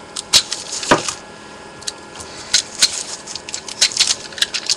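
A cardboard mailer sealed with packing tape being handled and cut open: irregular clicks, taps and short scrapes of cardboard and tape.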